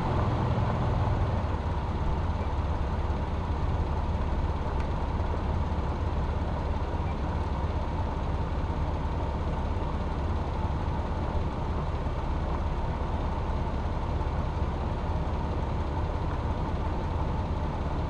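Jeep engine running steadily with a constant low hum and road noise, heard from the hood.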